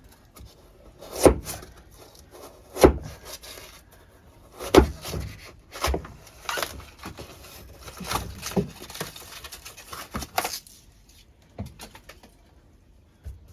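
Pry bar knocking and scraping against rigid foam insulation glued to the steel wall with construction adhesive. There are a few sharp knocks about one to two seconds apart, then lighter clicks and scraping that stop about two-thirds of the way in.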